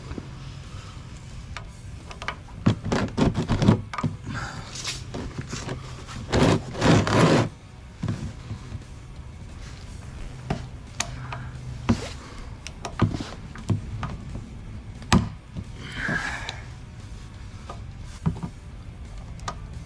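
Hand-work on an outboard motor's lower unit while its drain screws come out: scattered knocks and clicks, with two louder spells of scraping and rattling about three and seven seconds in, over faint background music.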